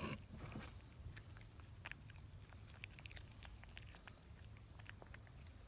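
Canadian Sphynx cat chewing cucumber: faint, irregular crunchy clicks.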